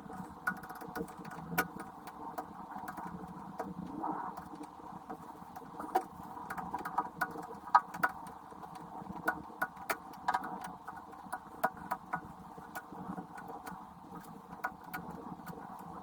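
Worn electric motor of a 1930s Colchester lathe running steadily, with frequent irregular clicks and rattles over the hum; the motor's bearings are rough.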